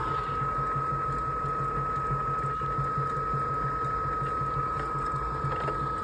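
A furnace condensate pump's small electric motor running steadily, a constant high whine over a low pulsing hum, as it pumps the hot water out of its reservoir. The new pump is working, and the water is getting out through the drain line.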